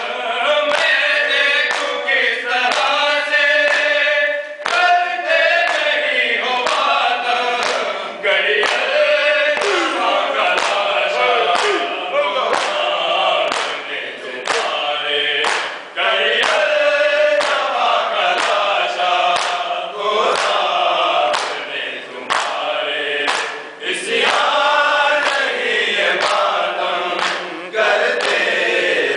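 Group of men chanting a noha in unison, led by a reciter. Steady rhythmic thuds of open hands beating on chests (matam) keep the beat, about once a second.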